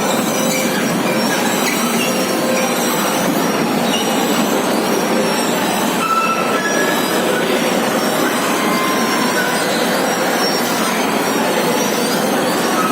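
Train running on rails: a steady rushing rumble with brief high wheel squeals.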